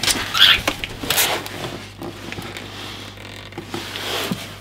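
Cardboard packaging rustling and scraping as a box's flaps are pulled open and the inner cardboard tray is lifted out, with a few sharp clicks and rubs.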